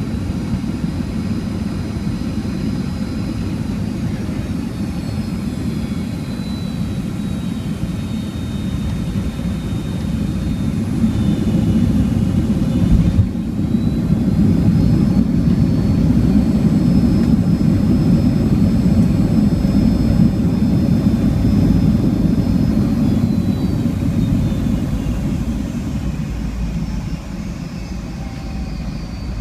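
Boeing 757-200's Rolls-Royce RB211-535E4B turbofans heard from inside the cabin during landing: a steady low roar with a high engine whine that glides down and back up. About 13 seconds in there is a brief thump, after which the roar grows louder for about ten seconds and then eases off.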